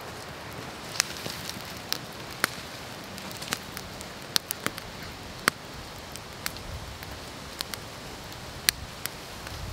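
Log campfire crackling: about a dozen sharp, irregular pops of burning wood over a steady hiss.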